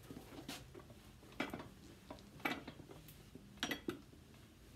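Faint, scattered taps and clicks of a cobbler working the edges of a freshly cemented heel on a leather shoe, rolling the edges down to seal the outside glue line. There are about five short clicks a second or so apart, with a couple close together near the end.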